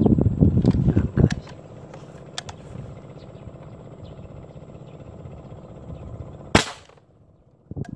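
Wind buffeting the microphone, dying down after about a second into a steady low rush. About six and a half seconds in comes a single sharp click, after which the sound briefly drops almost to nothing before the buffeting returns.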